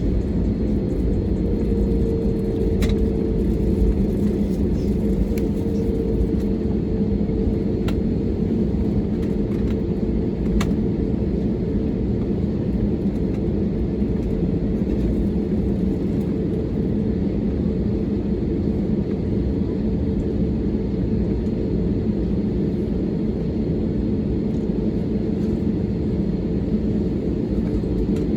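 Airbus A320neo cabin noise heard from a window seat: a steady drone of the CFM LEAP-1A turbofans and airflow, with a low rumble and an even hum that holds level throughout. A few faint clicks sound now and then.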